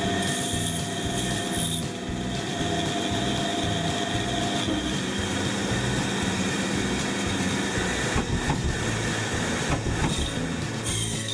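Pégas fine-cut band saw running and cutting through a small wooden workpiece. It makes a steady machine noise with a high whine, and there are a few sharp clicks about three-quarters of the way in.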